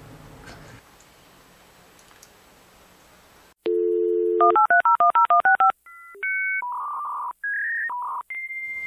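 Telephone dial tone for about a second, then quick touch-tone dialing of about ten digits, followed by a series of longer held phone-line tones at changing pitches. The first few seconds are only faint room sound.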